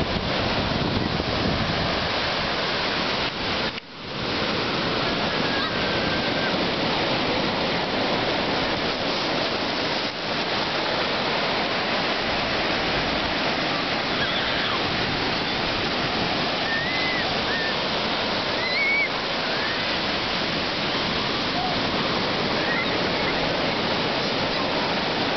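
Ocean surf breaking and washing up the sand close by, a steady rush of foaming water. The sound drops out briefly about four seconds in.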